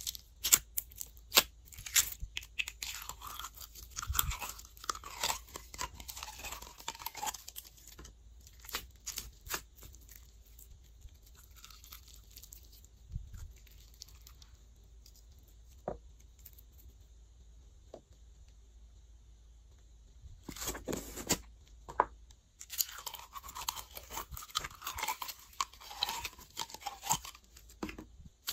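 Hands squishing, poking and stretching glossy store-bought slime, giving sticky clicks, pops and crackling squelches. It is busy at first, goes sparse through the middle, then turns busy again near the end.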